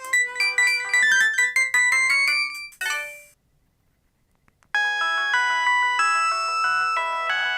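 Polyphonic ringtones of an LG KP105 mobile phone. One quick melody ends with a rising run about three seconds in, and after a second or so of silence the next ringtone starts with held, chiming tones.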